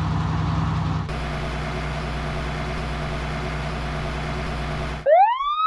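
Steady vehicle engine idling, switching abruptly to a slightly different engine sound about a second in. Near the end it cuts off and a siren wails in, sweeping quickly up in pitch.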